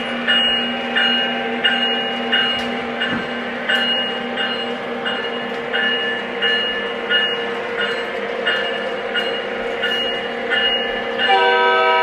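Onboard sound system of a Lionel O scale Union Pacific diesel locomotive playing a steady diesel engine rumble with a bell ringing about three times every two seconds. Near the end the horn sounds, a loud chord that holds.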